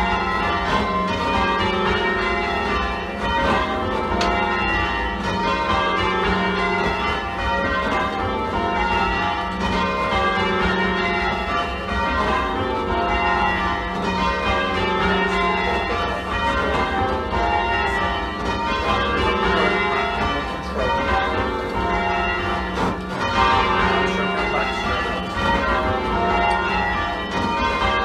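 A 15 cwt ring of eight church bells tuned in F, rung full-circle in steady sequence on all eight. The strikes follow one another at an unhurried pace, and the trebles sound a little shrill against the heavier back bells.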